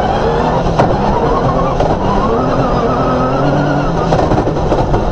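Cross-country rally car's engine running hard, its pitch climbing through the revs for a few seconds, dropping, then climbing again, over rough running noise with a few sharp knocks.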